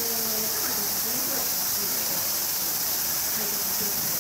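Steady, high-pitched drone of a summer cicada chorus, with faint voices underneath.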